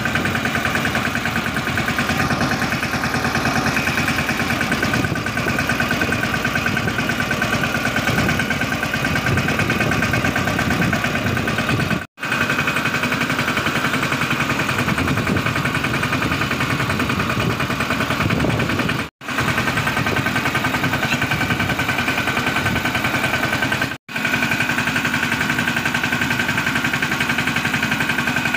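Small farm tractor's diesel engine running steadily under way, with a fast, even chugging. The sound cuts out sharply for an instant three times, about halfway through, two-thirds through and near the end.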